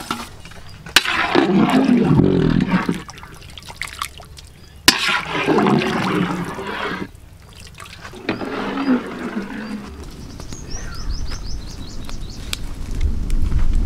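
A long-handled ladle knocks against a big aluminium cooking pot and stirs thin, freshly watered quail curry, sloshing, twice. Near the end a bird gives a quick run of chirps.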